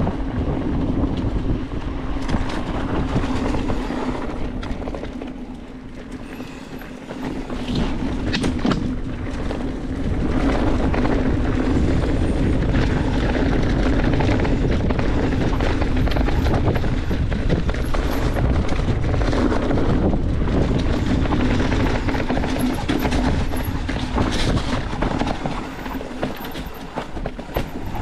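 Mountain bike riding down a rough dirt trail: tyres rolling over dirt and rock, and the bike rattling over the bumps with frequent small knocks. It eases off for a few seconds, then runs louder and steadier from about ten seconds in.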